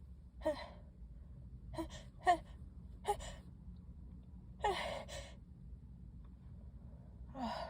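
A woman's short, sharp gasping breaths, about six of them a second or so apart, with a longer, breathier one about five seconds in: the hitching inhalations of a sneeze building up.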